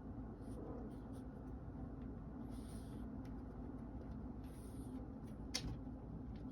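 Faint scratchy rustles and light clicks over a steady low hum, with one sharper click about five and a half seconds in.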